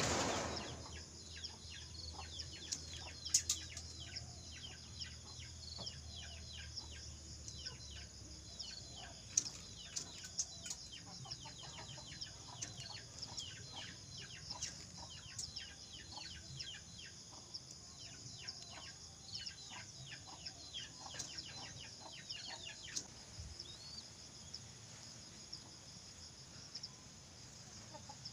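Ringneck dove squab begging while being fed: rapid, thin, high squeaks, several a second, each falling in pitch, going on until about 23 seconds in. A bump sounds at the very start, and a steady high insect trill runs underneath.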